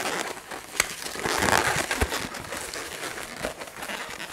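Long latex modelling balloon being twisted into a loop twist, its skin rubbing against itself and the hands, with a sharp click a little under a second in.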